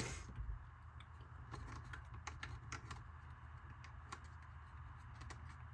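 Irregular small clicks and taps of hard plastic RC body parts and screws being handled, as an Injora hard body for a TRX-4M is taken apart to refit a forgotten headlight lens, over a low steady hum.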